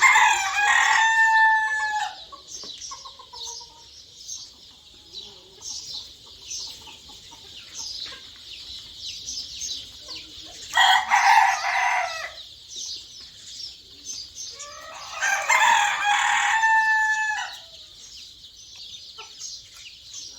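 Rooster crows three times: at the start, about eleven seconds in and about fifteen seconds in, each call lasting a second or two. Under the crows there is a constant high-pitched chirping from many birds.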